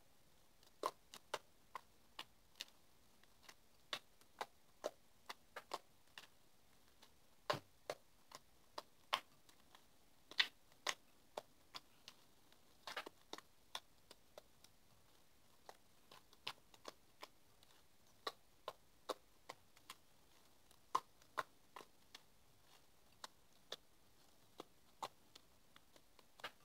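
Cloud slime being poked and pressed with a finger, giving faint, irregular small clicks and pops, about one or two a second.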